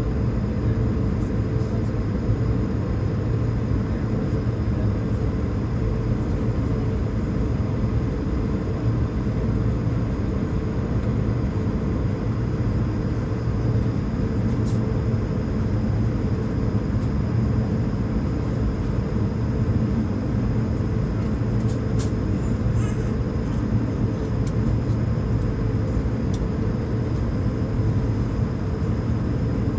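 Steady rumbling drone heard inside an airliner cabin on the ground: the jet's engines at idle and the cabin air running, with a low, even hum and a few faint clicks.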